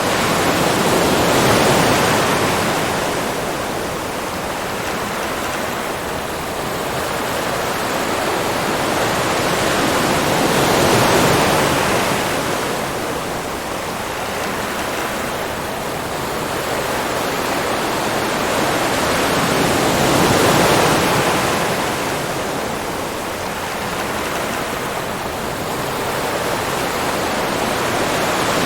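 Ocean surf: waves breaking and washing in, the rushing noise swelling and fading about every nine to ten seconds, three times here.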